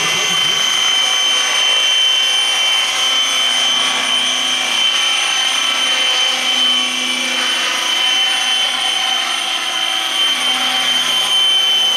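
Radio-controlled scale model helicopter lifting off and flying low over the water, its motor and rotors making a steady high-pitched whine.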